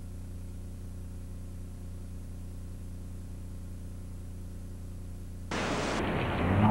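A steady low hum, then about five and a half seconds in a sudden rush of noise cuts in and grows louder a moment later.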